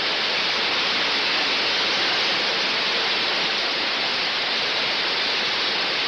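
Steady, loud rush of the Trevi Fountain's falling water.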